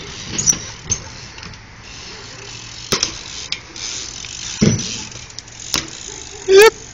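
BMX bike ridden around skatepark ramps and asphalt: several sharp knocks of the wheels and frame striking and landing, and the ticking of the rear hub's freewheel ratchet while coasting. Just before the end there is a brief, loud, high-pitched sound with a rising pitch.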